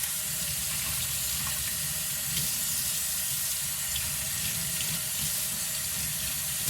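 Water running steadily from a tap as lemongrass leaves are rinsed under it.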